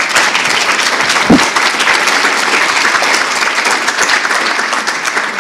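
Audience applauding: dense, steady clapping from many hands, with a single low thump about a second in.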